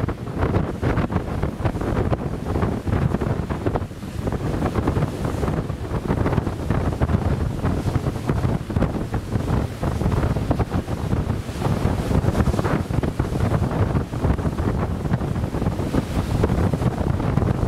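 Wind buffeting the microphone: a steady, gusting low rumble with no distinct engine note.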